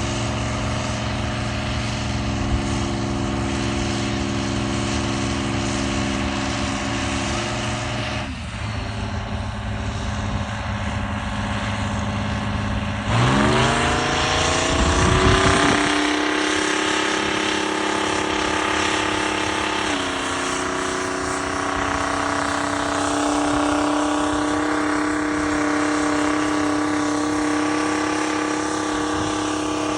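Rite 750 Earthquake tractor's big diesel engine running steadily, then revving up with a quick rise in pitch about a third of the way through. Near the middle the pitch steps down slightly and then holds steady, the engine pulling under load while plowing.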